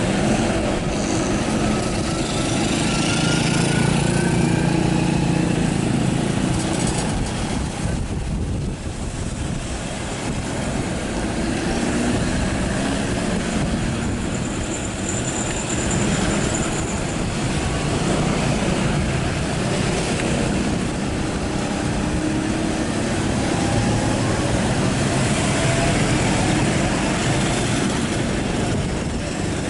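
Road roller's engine running steadily while it compacts the road surface.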